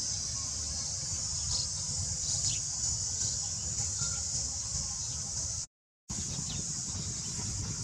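Outdoor ambience of insects droning steadily at a high pitch, over a low unsteady rumble, with a few faint bird chirps. The sound drops out completely for a moment about six seconds in.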